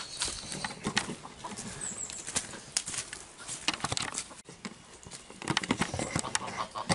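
Chickens and geese scuffling and flapping their wings at feeding time, among footsteps and scattered knocks and rustles as feed is handed out.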